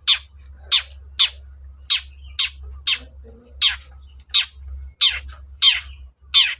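Long-tailed shrike calling: a run of short harsh notes, each dropping steeply in pitch, repeated about twice a second.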